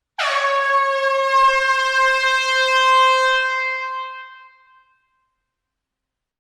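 Air horn sounding one long blast: it rises quickly in pitch as it starts, holds a steady note for about four seconds, then fades out.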